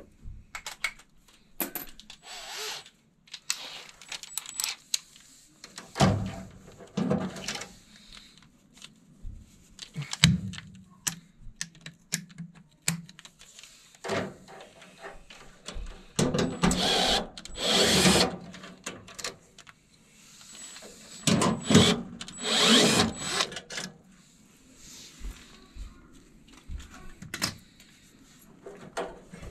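Milwaukee cordless drill/driver whirring in several short runs as it backs out screws, with clicks and clatter of tool handling between the runs.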